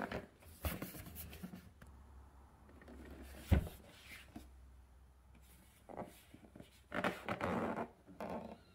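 Cardboard product box being handled and opened: light knocks and rustling, scraping cardboard, with one sharp knock about three and a half seconds in and a longer stretch of sliding and rustling near the end.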